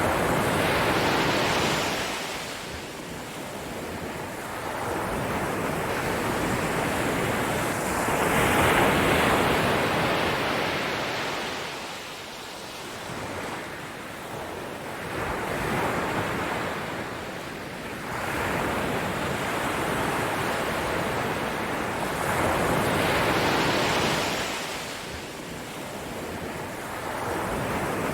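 Ocean waves surging in and drawing back, a hiss that swells and fades in slow rolls every several seconds.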